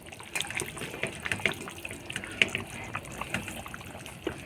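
Water running or splashing, with scattered clicks and clatters.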